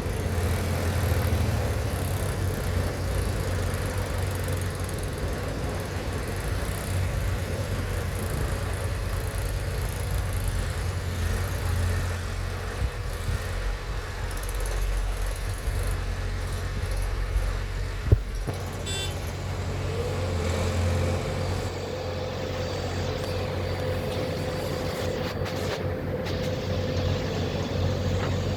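Heavy diesel engine running steadily at a low hum, with a single sharp knock about 18 seconds in and a steady higher whine setting in a couple of seconds later.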